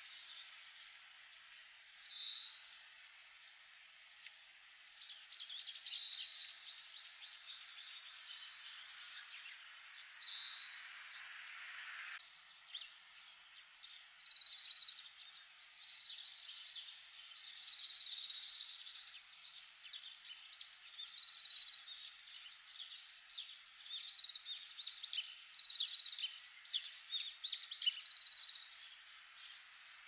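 Oriental greenfinch singing. Short rising notes come a few seconds apart at first; from about halfway there is a denser run of drawn-out notes mixed with quick twitters.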